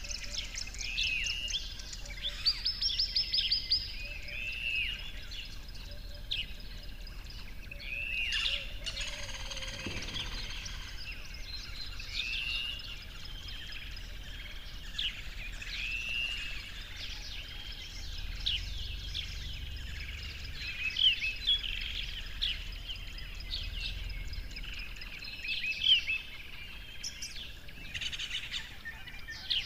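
Many birds chirping and calling, with repeated short arching chirps and quick trills, over a low steady rumble. A brief rushing noise stands out about nine seconds in.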